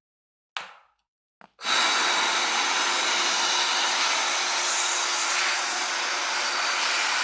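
Air blower switched on about a second and a half in, then running with a steady loud rush of air, blowing dust out of an opened laptop's fan area.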